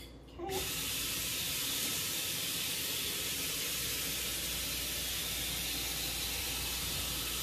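Kitchen faucet running steadily, its stream pouring through the mesh sprouting lid into a mason jar of sprouts to fill it for rinsing. The water starts about half a second in.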